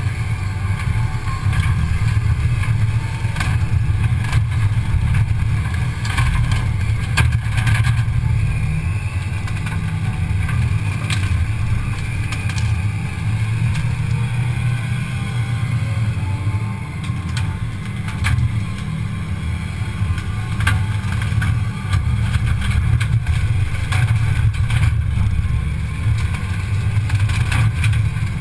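Cat 320 excavator's diesel engine running steadily under load, a heavy low hum with a strong low rumble, picked up by a camera strapped to the front of the machine. Scattered sharp cracks and snaps come through over it at irregular moments.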